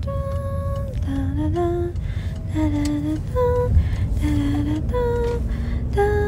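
Music: a slow melody of held notes, hummed by a voice without words, over a steady low backing.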